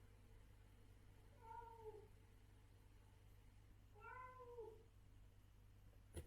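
Adult cat meowing twice, about two and a half seconds apart, each call rising and then falling in pitch. A single sharp click comes near the end.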